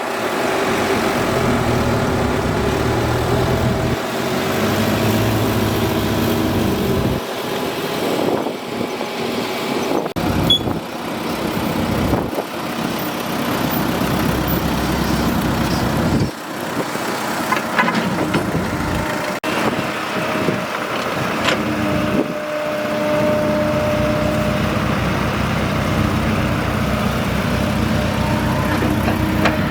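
A hydraulic excavator's diesel engine runs under working load, its pitch rising and falling as it digs, with a few sharp metal knocks about 10, 12 and 19 seconds in.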